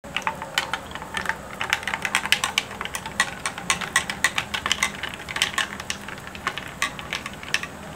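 A thin stream of liquid pouring into a full glass mug, heard as fast, irregular small clicks and pops, several a second.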